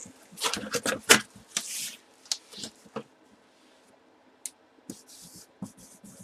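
Boxes and packaging being handled on a table. A quick run of knocks and rustles comes in the first two seconds, followed by scattered single taps and clicks.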